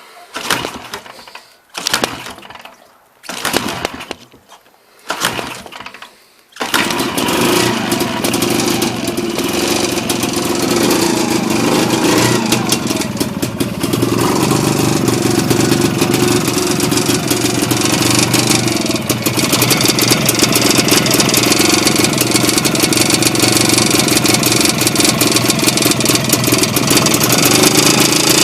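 An engine turned over in short bursts about every second and a half, then catching about six and a half seconds in and running steadily.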